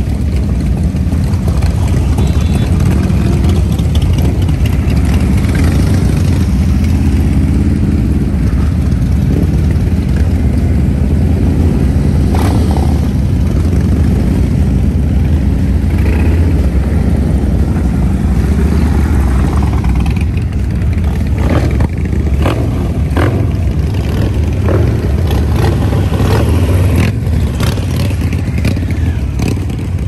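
Motorcycle engine running while riding, a steady low drone, with several short clatters in the second half.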